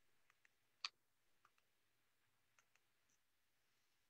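Near silence broken by a few faint computer mouse clicks, the loudest about a second in.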